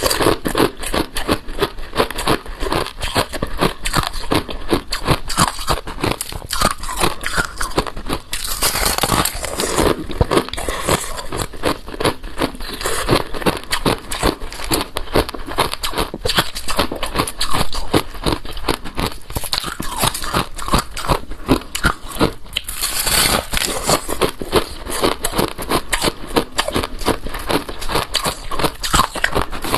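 Balloon ice being bitten and chewed close to the microphone: rapid, continuous crunching and crackling of hard ice.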